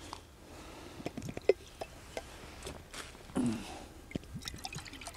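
Light metallic clicks and clinks as an aluminium moka pot is handled and taken apart, one sharper click about one and a half seconds in. Near the end, water poured from a plastic bottle into a small metal container.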